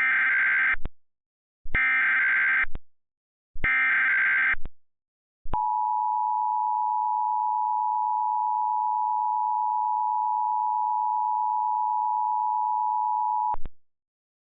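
An Emergency Alert System activation: three one-second bursts of SAME digital header tones about two seconds apart. They are followed by the EAS attention signal, a steady two-tone beep held for about eight seconds before it cuts off.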